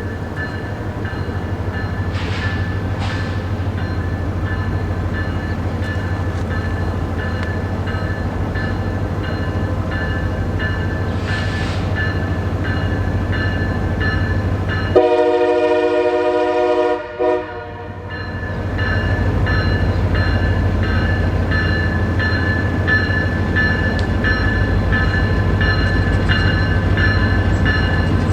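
Diesel freight locomotive running with a steady low engine rumble and a regular light ticking. About halfway through, its air horn sounds for about two seconds, then gives a short second blast.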